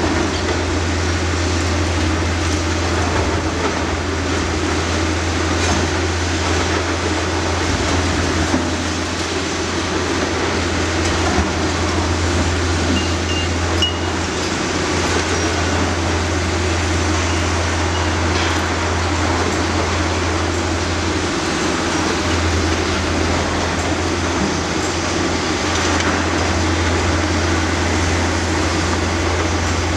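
Steady, loud rumble of heavy demolition machinery running, with a few faint knocks.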